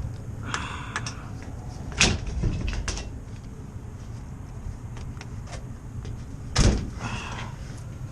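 Sheet-metal clanks and scrapes of a rooftop HVAC unit's access panels being handled, with two sharp knocks, one about two seconds in and one near the end, over a steady low hum from the unit running on heat.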